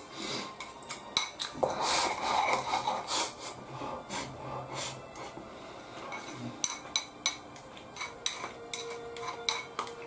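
Chopsticks clicking and scraping against a handheld bowl as food is shovelled into the mouth, busiest and loudest in the first few seconds, then scattered taps.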